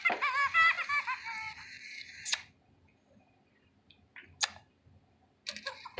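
Fingerlings baby monkey toy giving a very high-pitched electronic chattering giggle for about a second and a half, then a few sharp plastic clicks with near silence between them.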